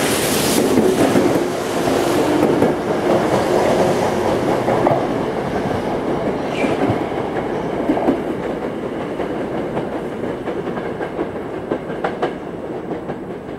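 Toyo Rapid Railway 2000-series electric train pulling out of the station and past the platform, wheels clacking over the rail joints. The sound fades steadily as the last car passes and the train draws away.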